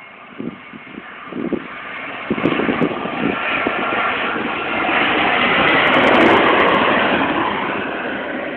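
Airbus A320 jet engines growing louder as the aircraft passes close, loudest about six seconds in, then fading. A few low thumps in the first three seconds.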